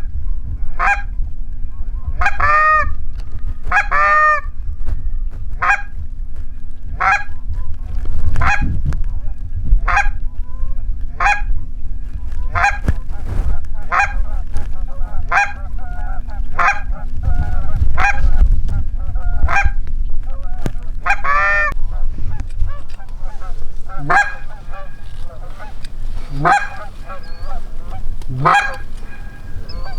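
Goose honks in a regular string of short calls, about one a second, with a few longer wavering calls among them; the calls thin out after about 22 seconds. A low rumble runs underneath.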